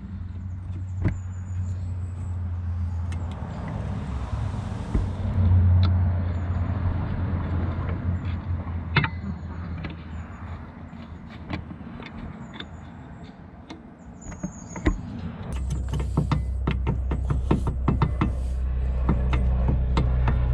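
Metal clinks and scrapes of a tool prying the worn rear brake pads out of the caliper, densest in the last few seconds, over a steady low hum that deepens and grows louder about three-quarters of the way through.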